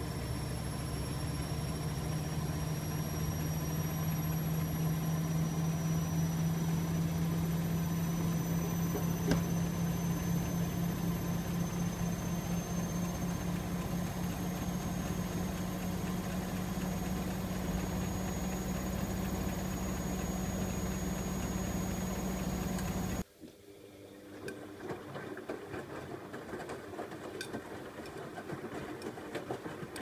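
Bosch Maxx front-loading washing machine spinning: a steady motor hum with a thin high whine that slowly rises in pitch as the drum speeds up. About 23 seconds in it cuts off abruptly, giving way to the quieter sound of the softener rinse, water in the drum with light clicks.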